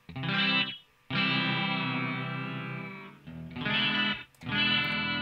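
Guitar chords played through AIR Delay Pro's delay with its chorus modulation turned up very high, so the notes waver in pitch. Four chords ring in turn, the second held longest.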